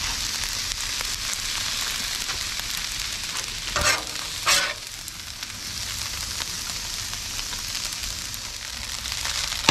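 Rice and vegetables sizzling steadily on a hot Blackstone flat-top griddle. About four seconds in there are two short scrapes of a metal spatula on the griddle plate.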